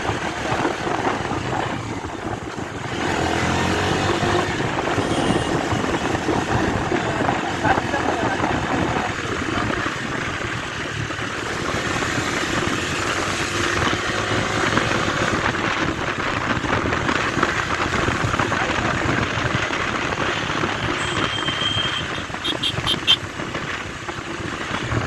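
Bajaj Dominar 250 single-cylinder motorcycle running on the move, its engine mixed with steady wind and road noise. A few short, high beeps sound close together near the end.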